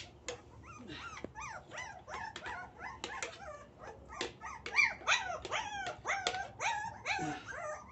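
A litter of young pit bull puppies whimpering and yelping: many short, high cries that rise and fall, several a second and overlapping.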